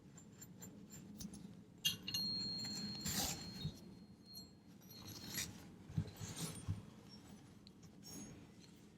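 A sound-healing tuning fork struck once, about two seconds in, rings with a high steady tone and fades over a couple of seconds. Light metallic clinks follow as the forks are handled.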